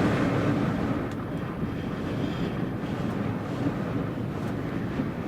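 Very strong wind, about 50 mph with gusts up to 70, rushing against a parked vehicle and the microphone, heard from inside the cabin; it eases a little about a second in.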